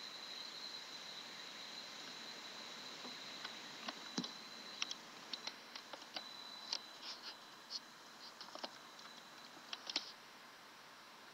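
Quiet room tone with a steady faint high whine, and from about four seconds in a scatter of short soft clicks and ticks, the loudest near ten seconds, after which the whine stops.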